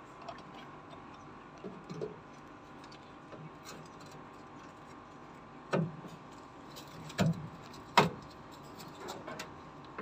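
Handling noise: a few sharp knocks and clicks, the loudest about eight seconds in, as a washing-machine motor capacitor in its plastic bracket is worked against the machine's cabinet and mounting holes.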